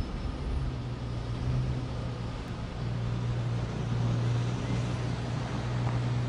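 Koenigsegg Agera R's twin-turbo V8 rumbling low and steady at slow crawling speed, growing a little louder after about three seconds.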